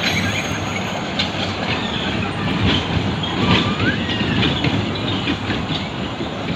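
Small children's ride-on train running around a narrow circular track, its wheels clicking over the rail joints against a steady rumble.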